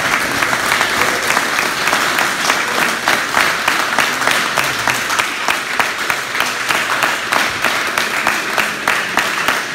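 Steady applause from a group of people clapping.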